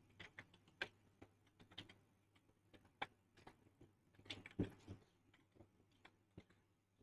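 Computer keyboard being typed on, faint irregular keystroke clicks in uneven runs, with a louder cluster about four and a half seconds in.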